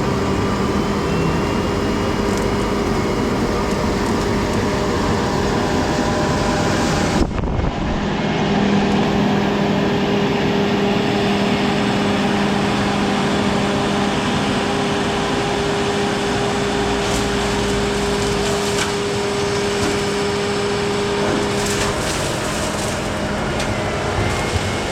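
Kubota SVL75-3 compact track loader's diesel engine running steadily at working speed while clearing brush, with a brief break about seven seconds in.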